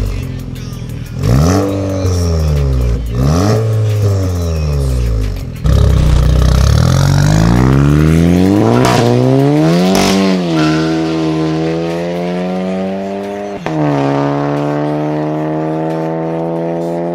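VW Golf GTI Mk7.5's turbocharged 2.0-litre four-cylinder through a titanium aftermarket exhaust, revved in two short blips, then accelerating hard with a long rising note. Two sharp cracks come near the top of the rev climb at the gear change, after which the pitch drops and the note falls slowly as the car pulls away.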